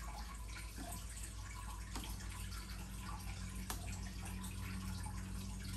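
Chopsticks and a spoon stirring noodles and herbs in a ceramic bowl: soft wet stirring with a few light clicks against the bowl, over a steady low hum.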